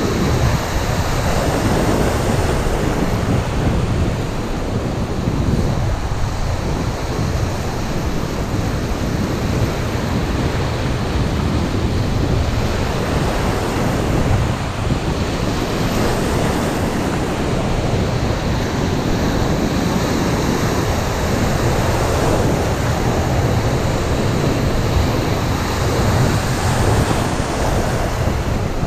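Surf breaking and washing around close to the water, with wind buffeting the microphone in a steady low rumble.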